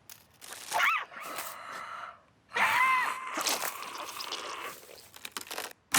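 Cartoon sound effects with two short non-verbal character vocal sounds, each rising then falling in pitch, about a second in and about three seconds in.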